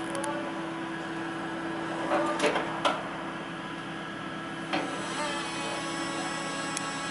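Linde K10 tri-lateral order picker's electric motors running with a steady whine and hum. A few sharp clunks come about two to three seconds in and again near five seconds, after which a higher whine joins.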